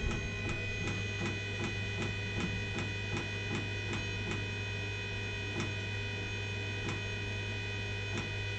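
Diesel heater's fuel dosing pump clicking steadily, about three clicks a second at first and more spaced out later, over a constant hum. Each click meters a small dose of diesel: the pump is being run to purge air from the fuel line after a no-fuel warning.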